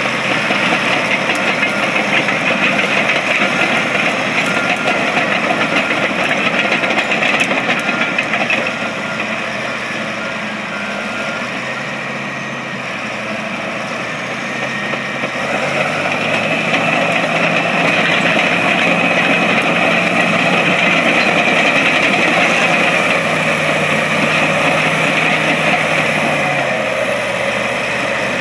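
Caterpillar D7H Series II crawler dozer's turbocharged six-cylinder diesel running as the machine drives and turns on its tracks. The sound eases off and gets a little quieter about nine seconds in. The engine speeds up again at about sixteen seconds and drops back a couple of seconds before the end.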